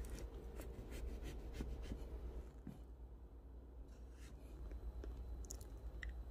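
A kitchen knife cutting a lid out of the top of a kabocha squash: faint scratching with a run of small clicks as the blade works through the hard rind, and a couple more clicks near the end.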